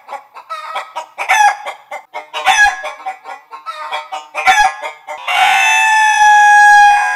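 Chicken calls, some of them digitally altered: a series of short, repeated clucking squawks with falling pitch. About five seconds in, one long call is held at a steady pitch.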